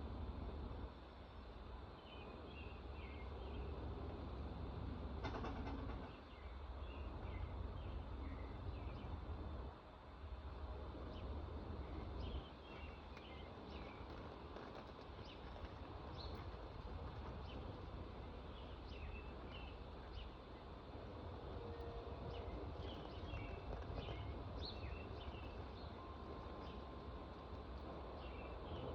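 Small birds chirping in short, scattered calls over a steady low rumble, with a single brief knock about five seconds in.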